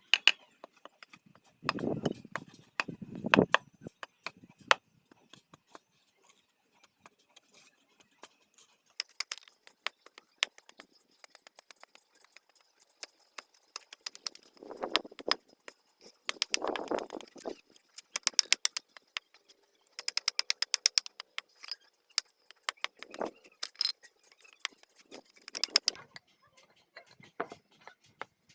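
Hammer strikes, a few heavy knocks and then quick runs of light taps, several a second, as a hammer is fitted onto its bamboo handle.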